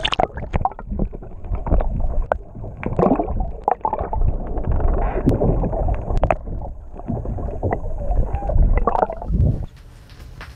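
Water sloshing and gurgling around a camera dipped at the waterline beside a boat hull, muffled and low, with many sharp clicks and knocks. It drops quieter about a second before the end.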